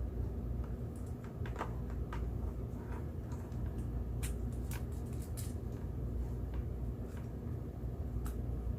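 Scattered light clicks and rattles of small parts being handled while a streaming microphone set is put together, over a steady low hum.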